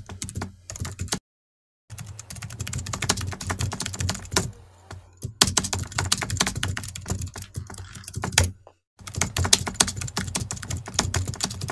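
Fast computer-keyboard typing, a dense run of clicks that stops dead twice for a moment and cuts off just before the end.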